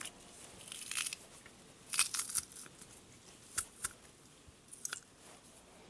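Handheld garlic press crushing fresh garlic cloves: a handful of short crunches and clicks, some in quick pairs, as the cloves are squeezed through.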